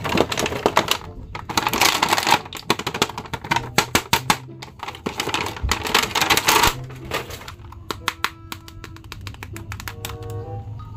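Clear plastic packaging crinkling and rustling as a toy action figure is handled and pulled out of its bag, giving way near the end to a run of quick, sharp clicks.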